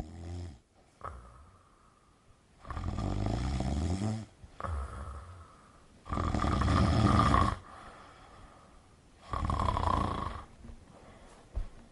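A person snoring: three long, loud snores about three seconds apart, with a shorter snort-like sound between the first two.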